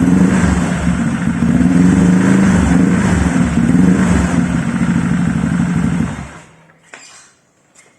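Motorcycle engine running through an ABF Racing Hexa 35 cm big-volume aftermarket silencer with full baffling, a mellow, steady exhaust note with a pulsing low end. The engine stops about six seconds in.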